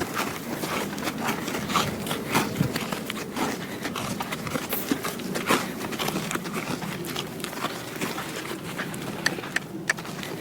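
Mustang's hoofbeats on arena footing as it moves round in circles: an uneven run of dull thuds over a steady background noise.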